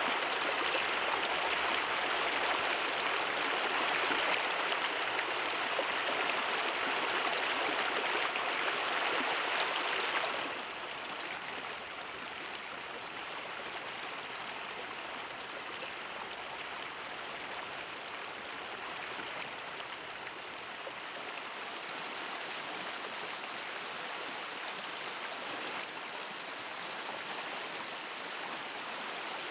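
Shallow river rushing steadily over rocks. About ten seconds in, the rush drops abruptly to a quieter, softer level.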